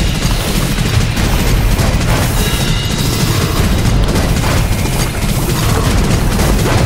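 Strong wind buffeting a low-mounted camera microphone in a heavy, continuous rumble, with choppy waves splashing and slapping against the kayak's hull and deck in irregular thumps.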